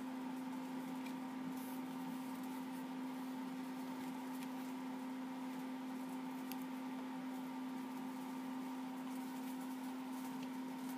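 A steady electrical-sounding hum, with a few faint clicks.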